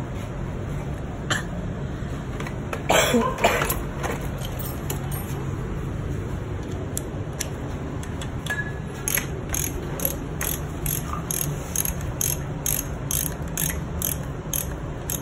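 Metallic ratcheting clicks as the cam gears on an Aprilia RSV4 V4 cylinder head are turned by hand to set the cam timing. A short clatter comes about three seconds in, then from about nine seconds a regular run of clicks, about two a second.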